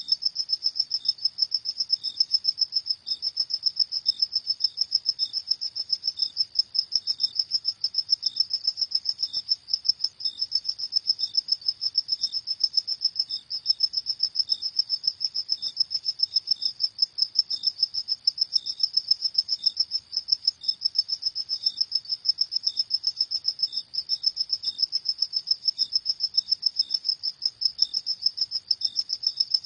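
Crickets chirping: a high-pitched, rapid pulsing trill that keeps going steadily without pauses, with a fainter, lower chirp repeating about once a second underneath.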